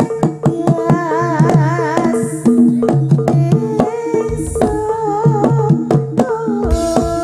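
Jaranan gamelan music played live: hand-drum (kendang) strokes drive over steady metal gamelan notes, with a wavering melody line above and a bright splash about every two seconds.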